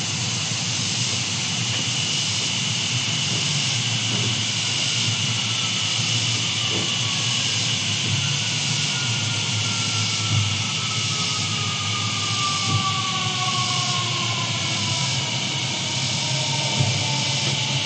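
Distant jet aircraft passing over: a steady roar with a faint whine that slowly falls in pitch over several seconds. There are a few faint clicks.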